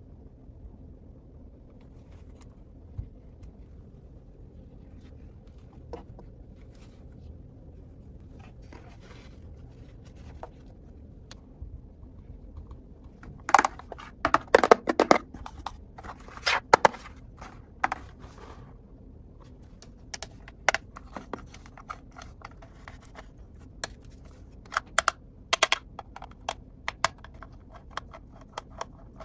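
Small plastic toy kitchen pieces being handled, with scattered light clicks and taps. A busy run of louder clicks and clatter comes about halfway through, then sparser clicks.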